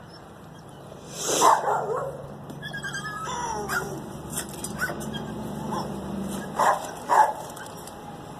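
Dog barking and whining while waiting to be fed: a loud bark about a second in, whining in between, and two more sharp barks near the end.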